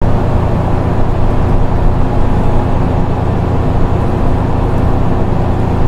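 City transit bus heard from inside the passenger cabin: a steady low rumble of the bus running.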